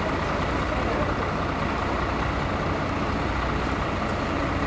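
Fire engine idling: a steady, unchanging low engine rumble.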